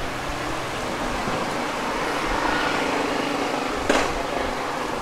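Steady hum and hiss of street-stall background noise, with one sharp clack about four seconds in.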